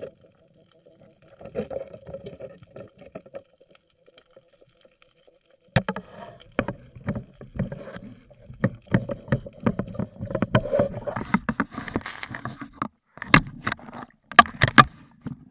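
Underwater camera audio: a faint steady hum, then from about six seconds in many irregular knocks and clicks with water sloshing, as a speared fish is handled on the spear shaft near the surface.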